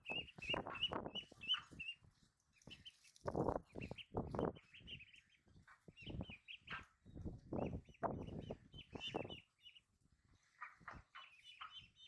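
A flock of ducklings peeping in quick, high-pitched chirps that come in clusters. Louder, irregular muffled thumps and rustles sound between and under the peeps.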